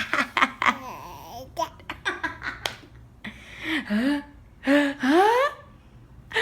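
A young child laughing and giggling, then making high rising 'ah' sounds near the end, the build-up of a pretend sneeze.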